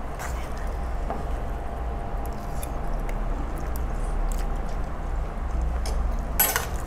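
Two people eating noodles with forks from small bowls: faint chewing and small fork clicks over a steady low hum, with one sharper sound about six seconds in.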